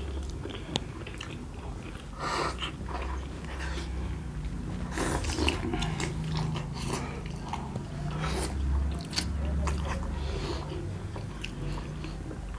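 Close-up biting and chewing of chicken momo dumplings: a run of wet mouth clicks and smacks.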